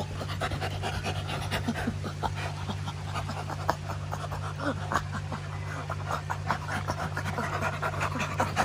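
Chimpanzee laughing: a rapid run of breathy, panting laughs made with the mouth wide open, a sign the young chimp is enjoying rough play.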